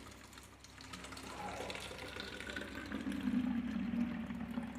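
Water running from the tap of a plastic water container into a plastic bottle, filling it; the flow grows louder over the first few seconds.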